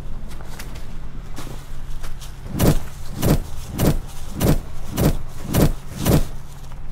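A series of seven punch hits, evenly spaced about one every 0.6 s, starting a little over two seconds in. A steady low hum runs underneath.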